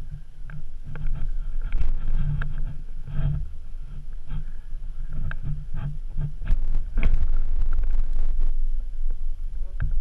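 Wind rumbling on the microphone of a pole-mounted action camera, with scattered short crunches and knocks from footsteps in snow and handling of the pole, more of them in the second half.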